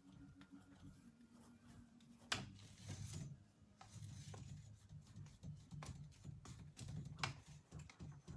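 Faint scratchy strokes of a paintbrush worked back and forth across a canvas, blending two colours together, with a single knock about two seconds in.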